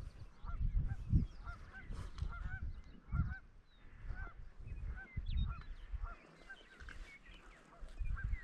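A flock of birds calling over and over, many short honk-like notes overlapping, over an irregular low rumble of wind on the microphone.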